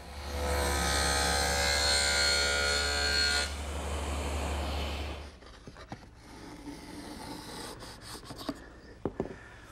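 Table saw cutting a groove into the end grain of a pine breadboard edge, its blade whine loud for about three and a half seconds, then running free and shutting off about five seconds in. After that, a small hand plane shaving the pine edge, with quiet scraping strokes and a couple of light knocks.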